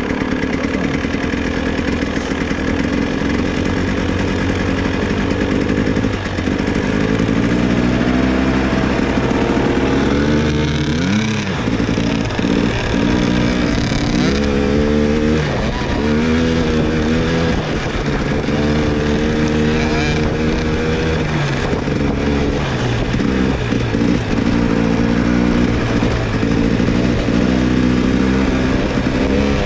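A 300 cc two-stroke enduro motorcycle being ridden. The engine note climbs and falls again and again as the bike accelerates and shifts through the gears.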